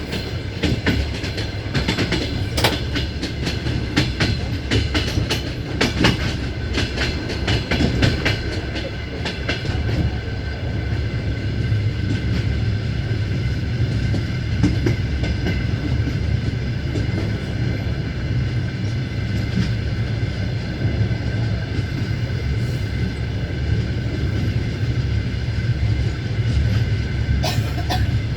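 Passenger train coaches running along the line, heard from aboard: a steady low rumble with the wheels clacking over rail joints, the clacks thickest in the first several seconds, and a steady high-pitched whine over it.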